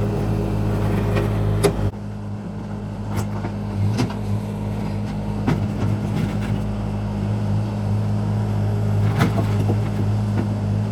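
Engine of a piece of demolition equipment running at a steady low drone, with a few sharp knocks scattered through it.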